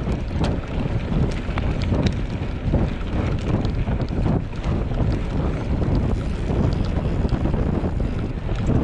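Wind buffeting the microphone: a steady, loud rumbling noise that surges and falls, with scattered small knocks.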